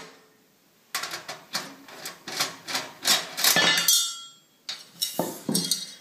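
Sheet-metal parts of a PC case being worked loose by hand: a run of sharp metallic clicks and clatters starting about a second in, with a brief metallic ring just before the middle of the clip.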